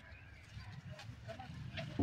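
Faint outdoor ambience: a low rumble with a few short, faint chirps and a couple of light clicks.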